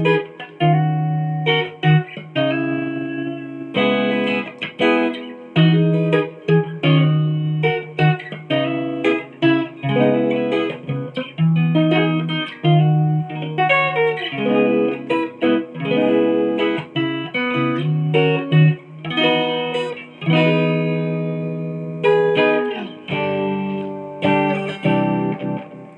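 Vantage electric guitar with an HSS pickup layout being played to show its tone. Single notes and chords are picked one after another, each ringing out and fading before the next.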